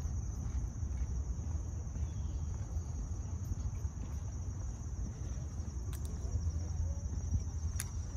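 Insects calling in a steady, high-pitched pulsing chorus over a low rumble, with two faint clicks in the second half.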